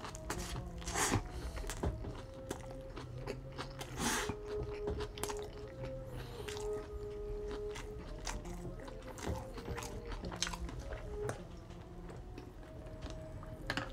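Close-miked eating of a Burger King Whopper: a bite into the soft bun and patty, then slow, wet chewing with small crunches and smacks, the loudest bites about a second and about four seconds in. Soft background music with held notes plays underneath.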